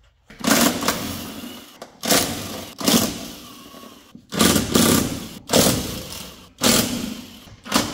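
Cordless impact wrench undoing the bolts of the transmission mount and crossmember on an Audi S8 Plus, running in repeated bursts of about a second each with short pauses between.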